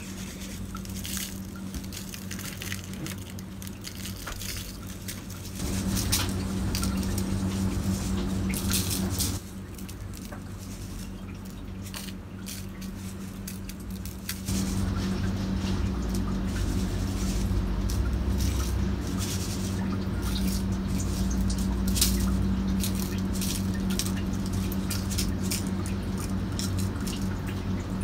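Salt poured from a glass jar onto pork belly in a foil-lined baking tray, the grains pattering and rustling in irregular spurts. Underneath runs a steady low hum that gets louder about six seconds in, drops back a few seconds later and rises again about halfway through.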